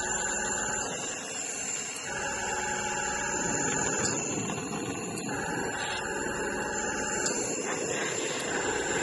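Jeweller's soldering torch burning with a steady hiss while heating solder on silver jump rings, with a faint whistle that comes and goes every second or two.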